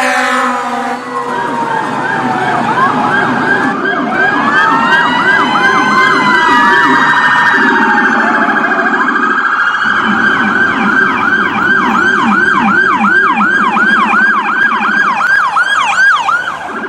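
Several electronic emergency-vehicle siren tones sounding together, with slow rising and falling wails and quick repeating yelp sweeps. From about ten seconds in a fast yelp of about three to four sweeps a second leads, over a lower layer of sweeps.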